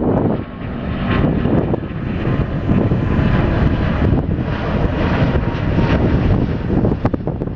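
Airbus A350-900's Rolls-Royce Trent XWB turbofans at climb thrust just after takeoff, passing low overhead: loud, steady rumbling jet noise.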